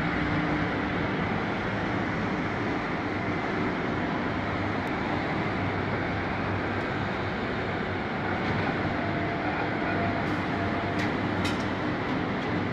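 A super heavy-duty lathe with 75-ton load capacity running, turning a large steel workpiece: a steady machine drone with a low hum and cutting noise. A few sharp light clicks come near the end.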